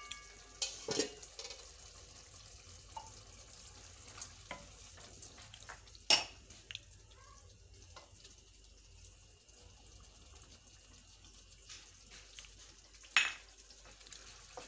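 Wooden spoon stirring minced meat and peas in an aluminium karahi over a faint simmering sizzle, with sharp knocks of spoon and pan about a second in, around six seconds in and near the end.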